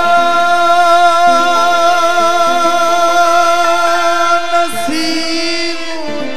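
Qawwali singing with accompaniment: a singer holds one long, slightly wavering note, then breaks off and moves to a new phrase about five seconds in.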